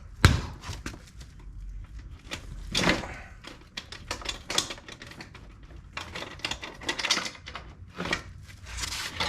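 Irregular clicks and knocks of a motorcycle wheel and tools being handled and set down, with one sharp knock just after the start.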